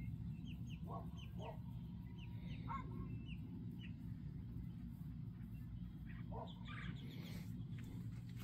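Small birds chirping in short, quick downward notes, in scattered runs, over a steady low hum.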